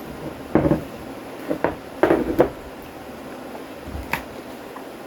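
A few light knocks and clatters of kitchen containers and utensils being handled on a counter, with a sharper click about four seconds in.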